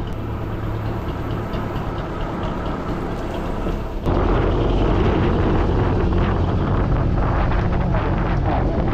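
Road-traffic noise with wind buffeting the microphone while riding; the rushing noise jumps suddenly louder about four seconds in.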